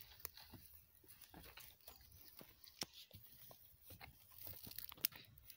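Faint scattered scrapes and crackles of a stick raking hot embers inside a clay bread oven, with three sharper snaps: one just after the start, one about halfway, and one near the end.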